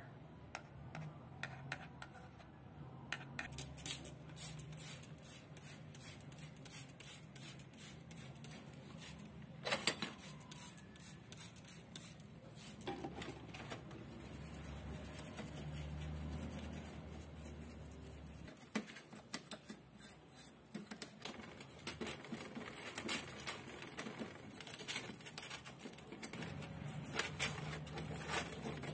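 Brushes scrubbing grease off angle-grinder parts in a wet steel tray, first the plastic motor housing, then the metal gear case: a run of uneven scratchy brushing strokes with small clicks and knocks of parts.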